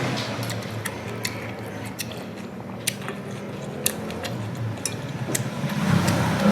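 A person eating bún riêu noodle soup, chewing, with a few sharp utensil clicks against the bowl. A low steady hum runs underneath.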